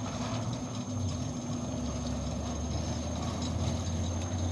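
Centurion D6 Smart sliding gate motor running steadily, a low even hum as it drives the steel sliding gate closed along its gear rack. It is running smoothly on the newly rewelded rack.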